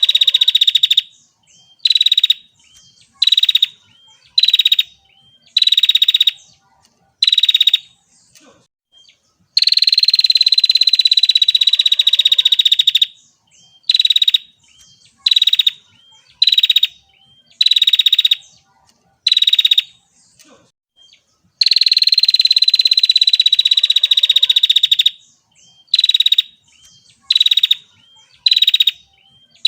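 Female prinia (prenjak) calling, the rattling "ngetir" call of a hen bird: long buzzy trills of about three and a half seconds alternate with runs of short, sharp calls about one a second.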